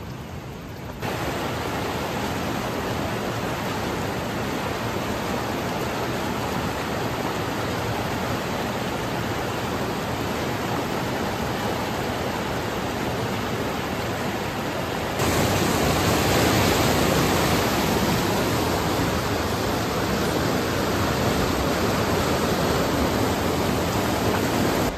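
Rain-swollen mountain river rushing through boulder rapids: a steady white-water rush that steps up in loudness about a second in and again about two-thirds of the way through.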